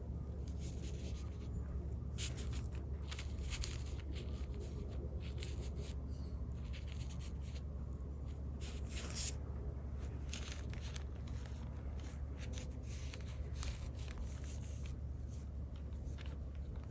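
Chinese brush stroking and dabbing across thin, sized cicada xuan paper: irregular soft, scratchy swishes over a steady low hum.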